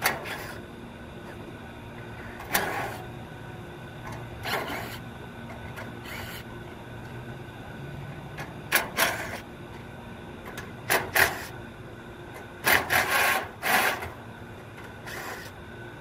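Screws being backed out of an air-conditioning condenser's top panel with a driver, in about seven short bursts of tool and metal noise, the longest near the end. A steady low hum runs underneath.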